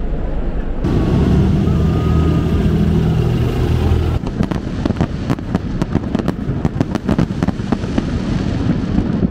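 A loud, low rumble for the first few seconds, then fireworks crackling: many rapid sharp pops.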